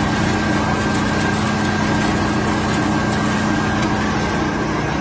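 Sawdust briquette screw extruder running steadily, a continuous machine hum with a constant low tone and a thin high whine, as it presses dried sawdust under heat and pressure into briquettes without binder.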